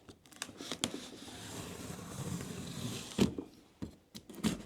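A sharp knife slicing through a cardboard box and its packing tape: a drawn-out scraping cut lasting a couple of seconds, with clicks and a knock from the cardboard being handled.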